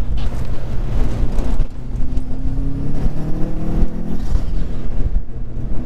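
Car engine heard from inside the cabin, revving under acceleration over steady road and tyre rumble. Its pitch climbs for a couple of seconds and drops back about four seconds in.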